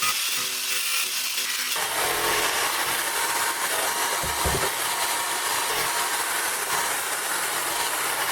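A power tool working on wood, a steady rasping noise. About two seconds in the sound changes, growing fuller and deeper, and it then runs on steadily.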